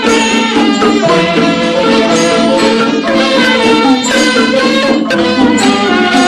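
Instrumental passage of a Burmese song: a busy melody moving in quick stepped notes over a steady accompaniment, with no singing.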